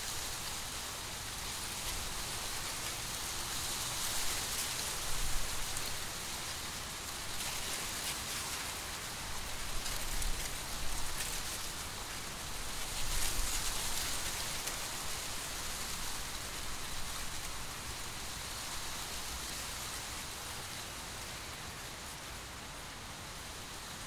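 Wind rustling the dry leaves and stalks of a mature corn field: a steady, crisp, rain-like hiss that swells in gusts several times.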